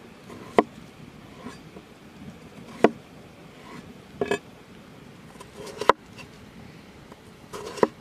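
Large knife cutting a peeled raw potato on a wooden board: sharp knocks of the blade striking the board five times, one of them a quick double, with faint scraping of the blade through the potato between them.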